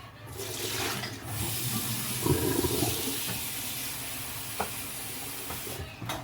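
Water running from a tap into a kitchen sink, turned on just after the start and off near the end, with a few knocks from something handled in the stream.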